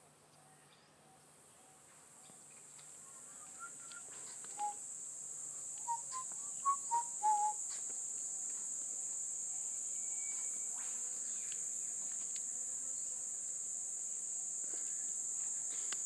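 A steady, high-pitched insect drone swells up about two seconds in and then holds. It is joined by a quick run of short bird chirps between about three and seven seconds in.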